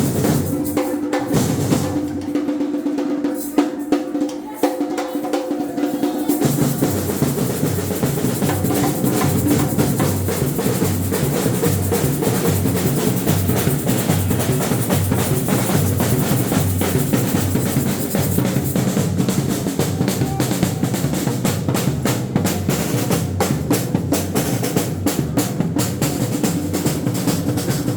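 Samba batucada percussion ensemble playing. For the first six seconds it is lighter with a few sustained tones; then deep bass drums come in about six seconds in, and the rhythm becomes dense and fast.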